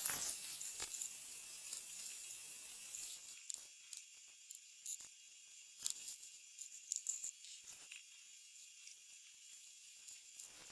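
Faint handling noise of small tools and parts being cleaned up and put away: scattered light clicks and short rustles. A steady high hiss runs under the first three seconds and then drops away.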